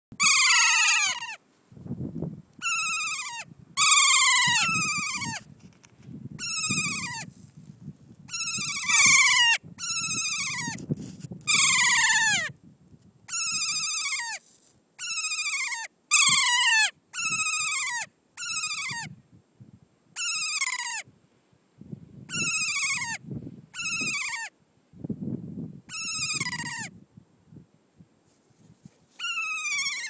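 Kea calling over and over: about twenty loud, screeching 'kee-aa' calls, each falling in pitch and lasting half a second to a second, some in quick pairs, with short gaps between.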